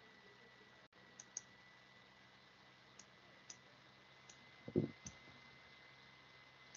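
Faint, scattered clicks at a computer, about seven over several seconds, with one short low thump about two-thirds of the way in. A faint steady hum and a thin high tone lie under them.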